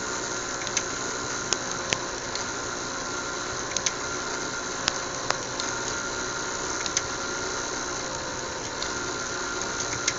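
Scattered single keyboard and mouse clicks, a few at a time at irregular intervals, over a steady whirring hum.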